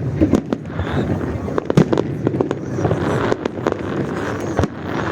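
Fireworks salute going off: many bangs and crackles in irregular quick succession, one overlapping the next.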